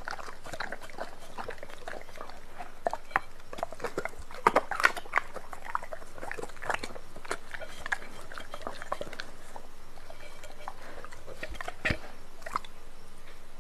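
Doberman pinscher eating raw meat from a plate: irregular wet chewing and biting with sharp clicks and smacks, busiest about four to five seconds in, then licking at the plate near the end.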